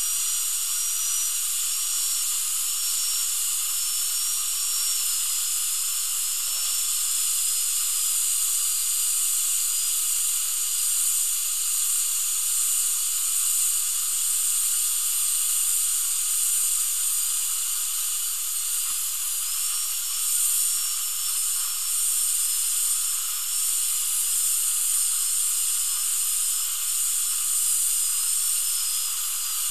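High-speed dental handpiece (drill) running steadily, its bur cutting away the head of a stripped Straumann implant occlusal screw. It gives a high whine that wavers slightly in pitch over a steady hiss, and the whine dips briefly near the end.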